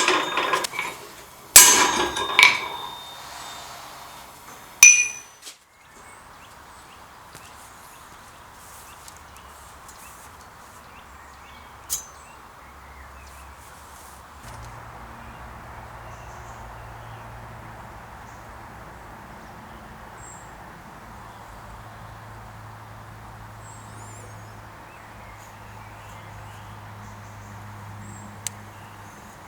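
Three hammer blows on steel in the first five seconds, each ringing on briefly after the strike. Then quiet outdoor ambience, with a faint steady low hum coming in about halfway.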